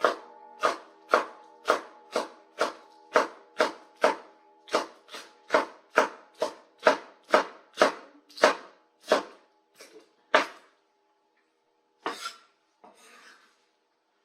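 A knife chopping scallions on a cutting board, sharp even chops about two a second. They stop about ten and a half seconds in, followed by a single knock and a short scrape.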